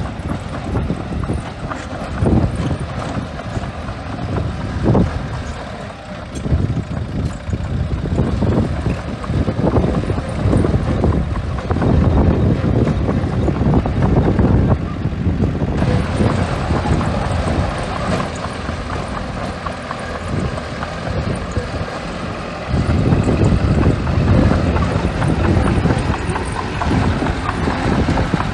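Small bulldozer's diesel engine running as it works, its sound rising and falling with the load.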